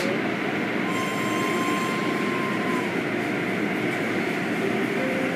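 Automatic tunnel car wash running: spinning cloth brushes, water sprays and drive motors make a steady din, with a faint thin whine for a couple of seconds about a second in.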